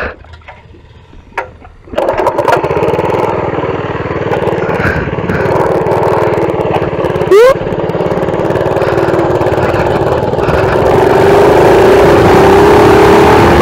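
Mini bike's Predator 212cc single-cylinder engine starting about two seconds in and running as the bike rides off, its pitch rising slowly near the end as it speeds up. A brief, sharp rising chirp comes about halfway through.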